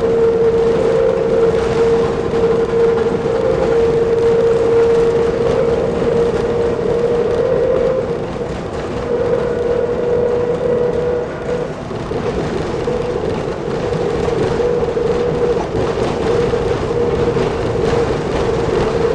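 Nanbu Jūkan Railway Kiha 10 rail bus running along the track, a steady diesel drone and whine over the rumble of the ride. It eases a little twice, a little past midway.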